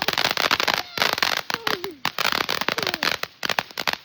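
Firecrackers going off in a dense, rapid string of sharp cracks, with brief lulls about one and two seconds in.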